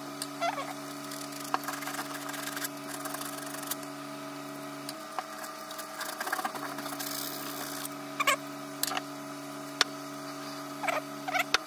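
Sandpaper rubbed by hand over rusty steel in short, uneven scratchy strokes, lightly taking off surface rust, over a steady low mechanical hum.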